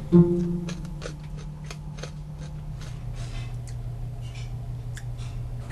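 Rock crab shell being cracked and cut apart for eating: a run of sharp, irregular clicks and snaps over a low steady hum.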